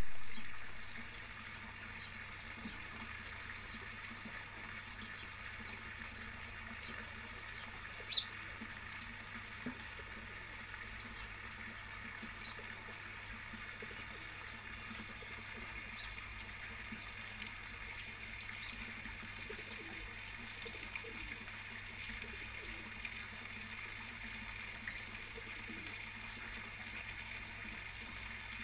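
Steady hiss of running or bubbling water, with one short, sharp high chirp about eight seconds in.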